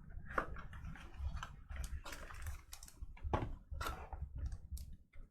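Hands handling a sports card box and its packaging: irregular clicks, taps and short rustles of cardboard and plastic, with a longer rustle about two seconds in.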